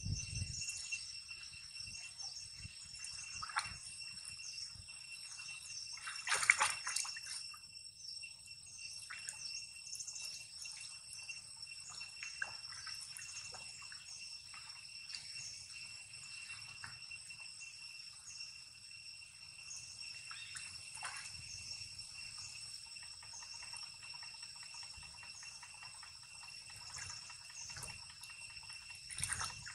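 Water splashing and dripping as young long-tailed macaques swim and paddle in a pond: a run of small splashes and drips, with one louder splash about six seconds in.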